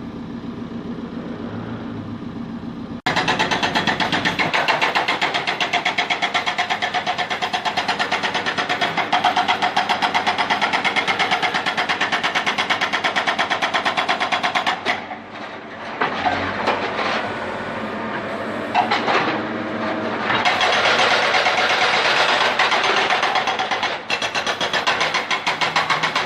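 Backhoe's diesel engine running quietly, then about three seconds in a loud, rapidly pulsing mechanical clatter starts suddenly and keeps going as the backhoe works the pit, with brief letups about midway and near the end.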